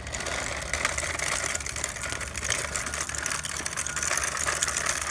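Plastic toy cement-mixer truck pushed by hand over concrete and brick paving, its plastic wheels rolling with a dense, steady rattling clatter.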